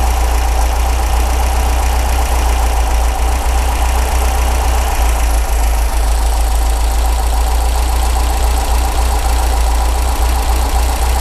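MGB's 1.8-litre B-series four-cylinder engine idling steadily on twin SU carburetors with the air cleaners off. One carburetor's jet is being screwed up to lean out a slightly rich mixture.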